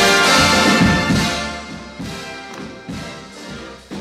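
Background music: an orchestral arrangement with brass, in an instrumental stretch between sung lines, growing quieter toward the end.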